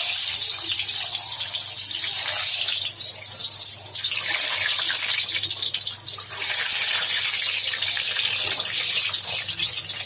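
Whole boiled eggs sizzling steadily in hot mustard oil in an iron kadhai. The eggs have just been added to the oil.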